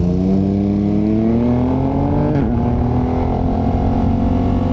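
KTM 1290 Super Adventure's V-twin engine pulling under throttle, its note rising steadily, then dropping sharply about halfway through as the bike shifts up a gear, then running at a steady note.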